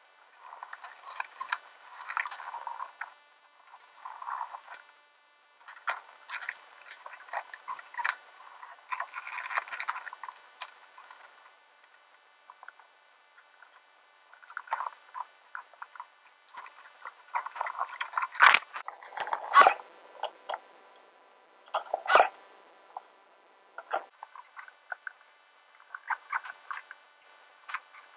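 Workshop handling sounds: irregular clicks, knocks and scrapes of timber battens and hand tools being moved and fitted on a wooden workbench, with a few sharper knocks about 18 to 22 seconds in.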